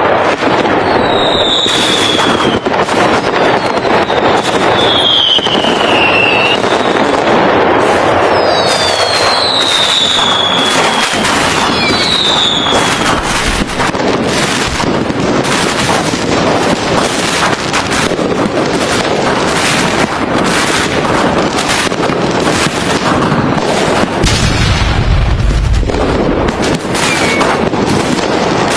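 Fireworks going off in quick succession: a constant stream of bangs and crackling. Several whistles fall in pitch in the first half, and a deep boom comes about 25 seconds in.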